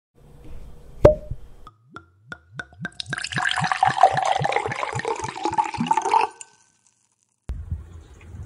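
Logo sound effect of liquid in a glass: a click, then a quickening run of drips, then liquid pouring for about three seconds that cuts off suddenly. A low rumble starts near the end.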